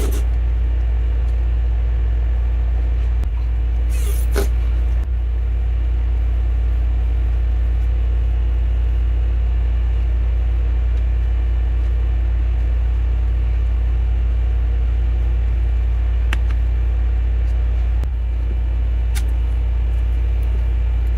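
Steady low hum throughout, with a few faint, scattered small clicks as smartphone parts are snapped and fastened back into the frame.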